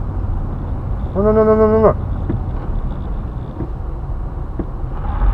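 Steady low rumble of a car's engine and tyres, heard from inside the cabin while driving on a snowy road. About a second in, a man's voice cuts in with a drawn-out, held "nu-nu-nu" lasting under a second.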